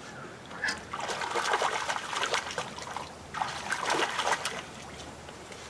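A hooked trout thrashing and splashing at the surface of a creek while it is reeled in, in two bouts of splashing of about two seconds and one second.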